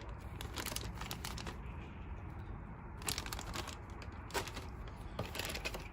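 Plastic model-kit parts trees and their plastic bags being handled: scattered light clicks and faint crinkling.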